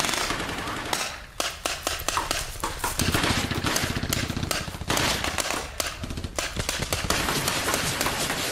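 Paintball markers firing: many sharp pops, sometimes in quick runs, sometimes single, over a steady low rumble.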